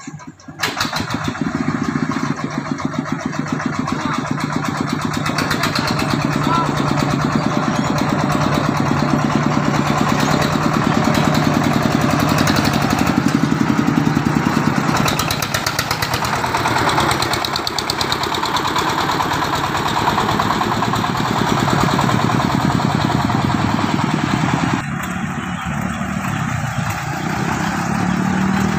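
Engine of a mobile rice-mill vehicle catching and starting about half a second in, then running steadily. A little before the end the sound drops and changes to a quieter engine.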